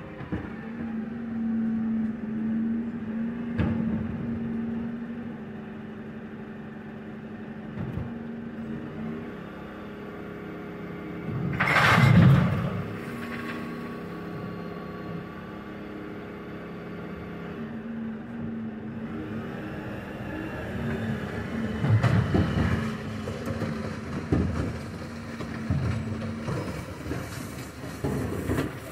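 Bin lorry's engine running steadily, with one loud crash about twelve seconds in as a bin is tipped, and more knocks and clatters in the last few seconds.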